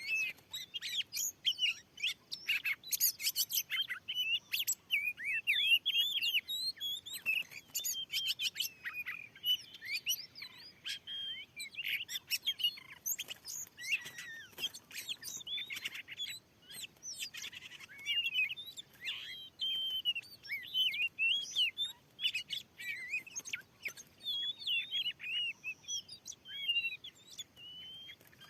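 Oriental magpie-robin singing a fast, unbroken stream of varied whistles and chirps, with short harsh rattling notes among them.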